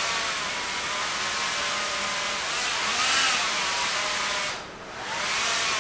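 Electric-motor propellers of a Quanser 3-DOF lab helicopter whirring as it holds flight under closed-loop control. Their pitch rises and falls as the controller varies thrust, and the sound dips briefly about four and a half seconds in.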